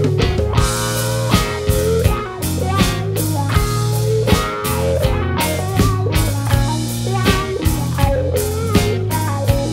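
Rock band playing live: a Telecaster-style electric guitar, a bass guitar and a drum kit, with steady drum hits over held bass notes.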